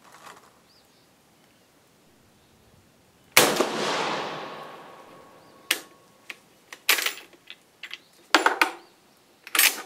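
One shot from an Austrian M95 long rifle firing 8x50mmR handloads, its report echoing and dying away over about two seconds. It is followed by a series of sharp metallic clacks as the straight-pull bolt is worked to eject the case and feed the next round from the magazine.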